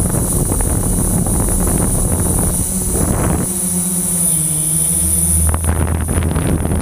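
Quadcopter drone's electric motors and propellers running in a hover, with wind buffeting the onboard camera's microphone. Under a steady high whine, the motor hum shifts pitch slightly midway, and a deeper hum comes in near the end.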